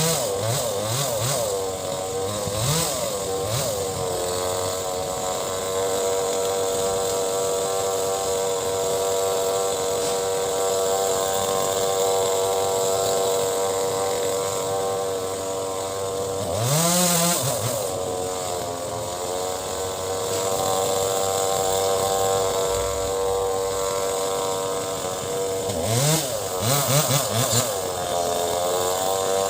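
Two-stroke chainsaw running steadily at high revs while cutting mango-tree wood. Its engine speed dips and rises briefly about halfway through and a few times near the end.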